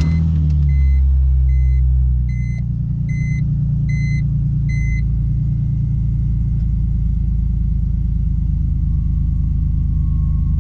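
Car engine just after start-up: a fast idle for about two seconds, then it settles to a steady idle with no rise and fall in revs, which the owner takes as a sign that the misfire, blamed on water in a spark plug well, has gone. A dashboard chime beeps repeatedly over the first five seconds.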